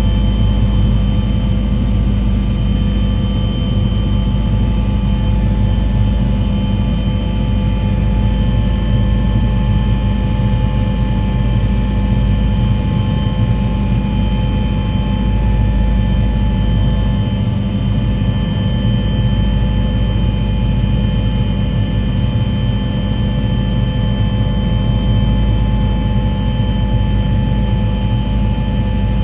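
Aircraft engine drone, steady and loud, with a low rumble and several held tones that do not change.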